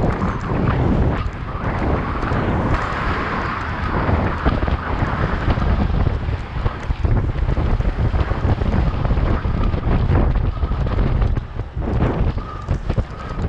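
Wind buffeting an action camera's microphone during a bicycle ride: a loud, gusting, low noise that rises and falls unevenly.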